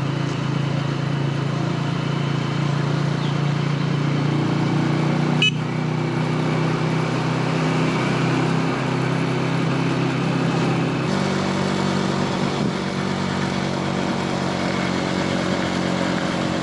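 Honda 125 motorcycle's single-cylinder engine running steadily under way, its note shifting pitch about four and a half and eleven seconds in. A brief sharp sound comes about five and a half seconds in.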